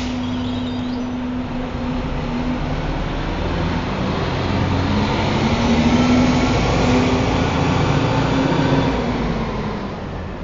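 Rumble of a train passing on a steel elevated railway, swelling to a peak about six seconds in and fading near the end, with a brief click at the start.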